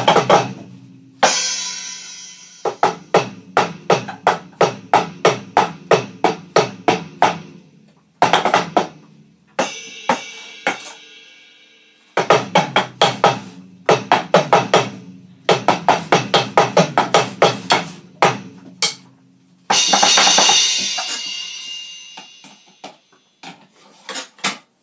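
Electronic drum kit played with sticks: runs of quick drum strokes, about four a second, broken by short pauses. A cymbal crash rings out about a second in and again near the end, each fading over a couple of seconds.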